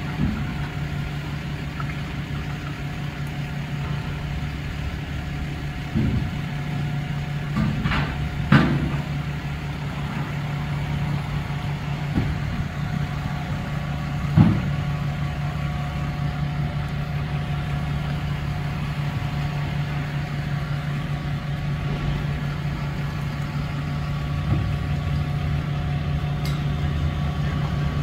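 An engine running steadily at idle, a constant low hum, with a few short knocks over it.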